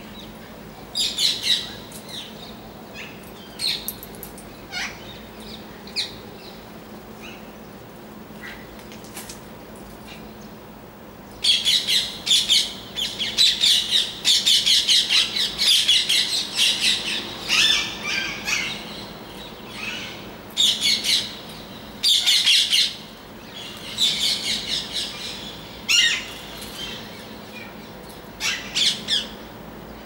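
Parrots squawking in quick runs of harsh, repeated calls: scattered at first, then nearly continuous from about a third of the way in, thinning out again near the end.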